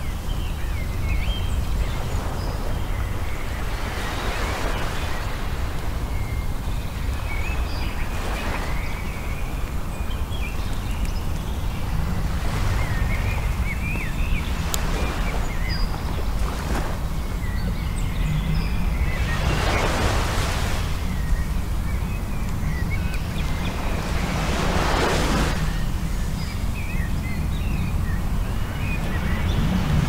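Waves breaking and washing up a shingle beach, the rushing hiss swelling every few seconds over a steady low rumble of surf and wind on the microphone. Faint high chirps are scattered through it.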